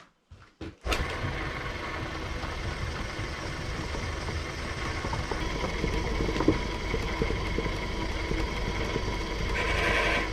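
Old belt-driven lathe switched on about a second in, starting suddenly and then running steadily. A higher-pitched sound joins near the end.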